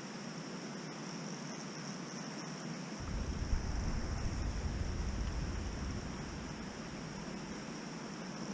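Steady outdoor hiss with a continuous high, insect-like buzz. About three seconds in a low rumble comes in and fades out again after about three seconds.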